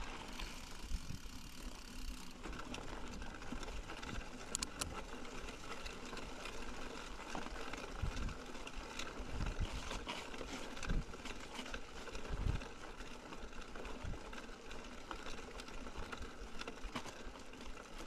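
Mountain bike being ridden on a trail: a steady rushing noise of tyres and air, with rattling clicks and a few heavy low thumps as the bike goes over bumps.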